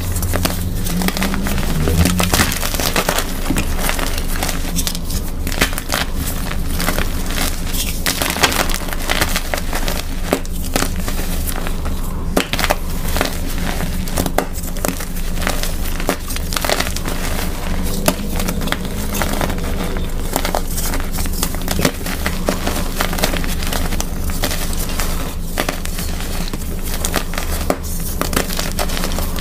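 Blocks of plain gym chalk crushed and crumbled between the hands: a continuous dense run of dry crunching and crackling, with powder and broken pieces crumbling.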